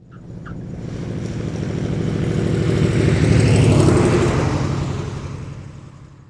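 Propeller aircraft flying past: its engine drone swells up, peaks about four seconds in with the pitch dropping as it passes, then fades away.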